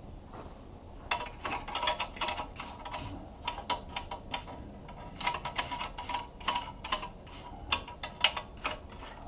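Hand wire brush scrubbing a freshly forged pair of steel tongs, in quick scratchy back-and-forth strokes of about three a second that start about a second in.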